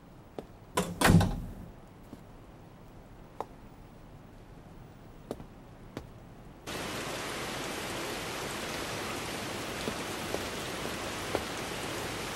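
A door shuts with a heavy thud about a second in, followed by a few sparse sharp clicks over a quiet background. At about seven seconds this cuts suddenly to the steady hiss of rain, with occasional light taps in it.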